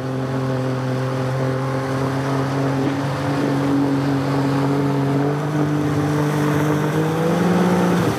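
Outboard motor of an inflatable river boat running steadily under way, its pitch rising slightly near the end, with a rush of water and wind noise underneath.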